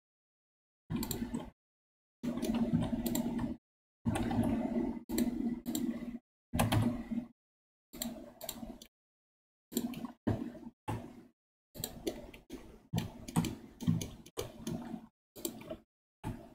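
Computer keyboard and mouse clicks in short irregular bursts while a 3D model is edited in Blender, each burst cutting off abruptly to silence, with a faint low hum under the clicks.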